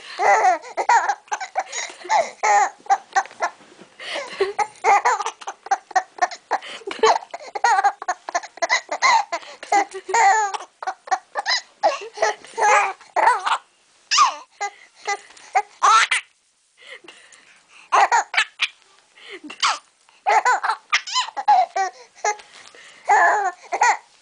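Infant laughing in long fits of short, rapid voiced bursts, breaking off for a second or so about two-thirds of the way through and then starting again.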